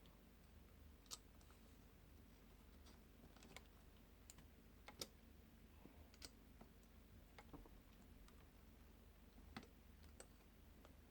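Faint, irregular clicks and light taps, about a dozen of them, from small tools and metal parts being handled while an opened laptop is reassembled.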